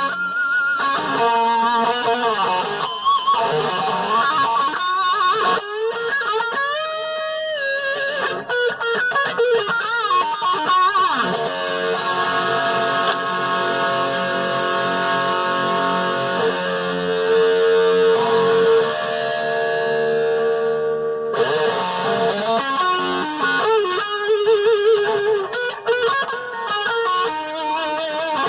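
A Dean Switchblade electric guitar with DiMarzio pickups is being played. It moves through lead lines with string bends and vibrato, and a chord is left ringing for several seconds in the middle.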